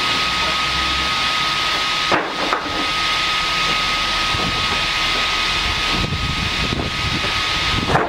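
Triumph 900 Premium band sawmill with its 15 kW electric drive running, a steady hissing noise with a thin constant whine from the saw. Two short knocks cut through it, about two seconds in and near the end.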